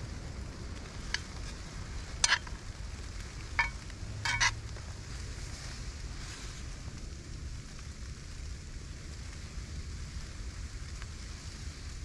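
Shrimp fried rice sizzling in a skillet on a gas-canister stove, with a spoon clinking against the pan about four times in the first half.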